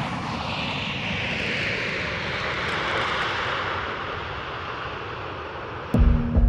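A steady rushing whoosh like an aircraft flying over, its pitch slowly falling: a flyover sound effect. Near the end, a low steady hum with heavy thumps cuts in suddenly.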